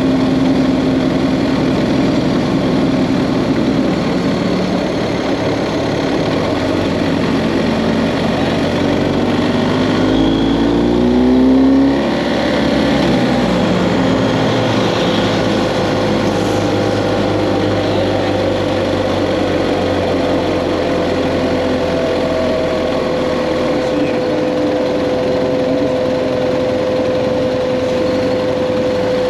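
BMW GS Adventure motorcycle engine running under way over a steady rushing noise. Its pitch rises for a couple of seconds about a third of the way in as the bike accelerates, then holds one steady, higher note.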